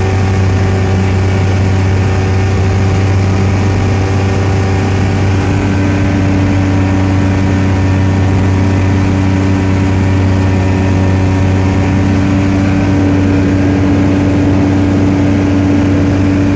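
Kitfox Model 1 light aircraft's engine and propeller running steadily in flight, heard from inside the cockpit, with an even engine note that does not change.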